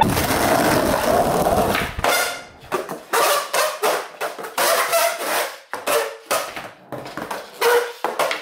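Skateboard wheels rolling on a concrete driveway for about two seconds, with a steady rumble. After that comes a string of short, uneven sounds.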